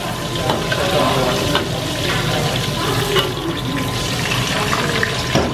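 Flour-coated chicken pieces deep-frying in hot oil in a steel wok over high heat, the oil bubbling and sizzling steadily. A few light clinks sound as a wire spider skimmer scoops the pieces out.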